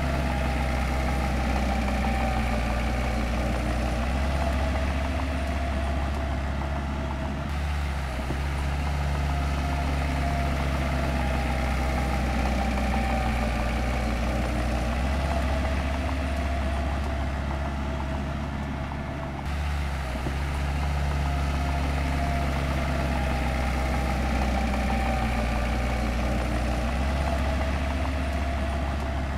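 Heavy construction-machine diesel engine running steadily at an even pitch, the sound jumping abruptly twice.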